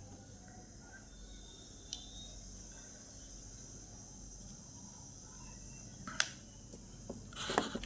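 Quiet handling of a keyboard cleaning tool over a laptop keyboard: a steady faint high hiss, a single sharp click about six seconds in, and a short rustle near the end.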